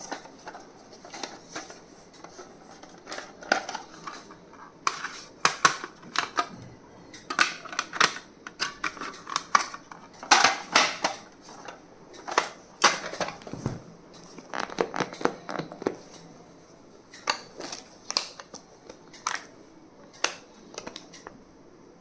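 Irregular clicks, taps and rustles of small stationery items and their packaging being handled and unpacked by hand.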